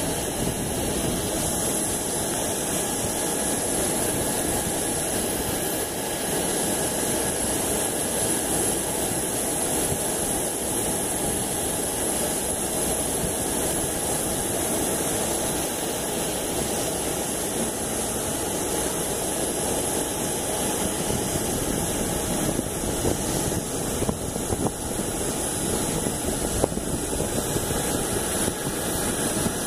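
Jet engines of a Boeing 777-200 on final approach and landing: a steady rushing noise with a thin high whine, at an even level with no clear build-up.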